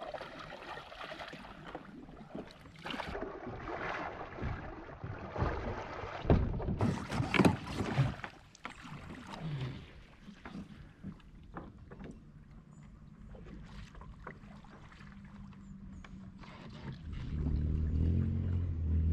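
Kayak on the water: paddle strokes and water splashing, with knocks against the hull and gear, loudest about six to eight seconds in. A low steady hum comes in near the end.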